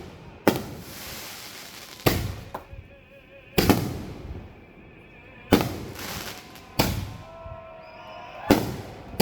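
Fireworks going off: six sharp booms about a second and a half apart, each trailing off in a fading rumble.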